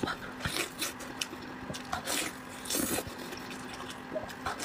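Close-miked wet eating sounds: irregular smacks and squelches as a large, soft lamb brain in chili sauce is bitten and chewed, the meat very tender. A faint steady hum runs underneath.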